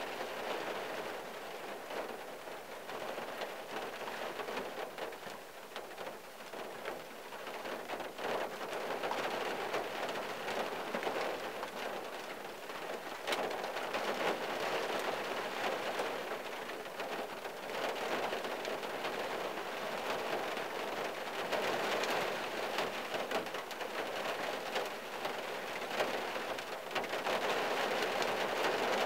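Rain falling on the windshield and roof of a '74 Valiant, heard from inside the cabin as a dense spatter of drops that swells heavier in spells, more so in the second half.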